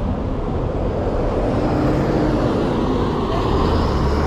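Road traffic with vehicle engines running close by. A low steady engine hum from a large bus strengthens about three seconds in.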